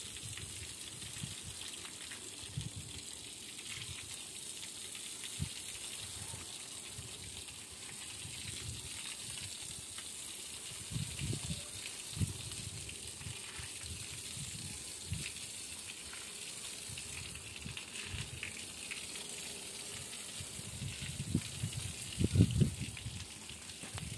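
Water spraying from a garden hose onto a brick wall, a steady hiss, as new brickwork is wetted to cure it. A few low bumps come about halfway through and a louder cluster of them near the end.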